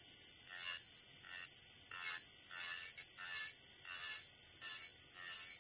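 Electric nail drill with a barrel bit set to about 1000 RPM, lightly grinding gel off a natural fingernail: a quiet, thin, steady whir with a soft pattern recurring two to three times a second.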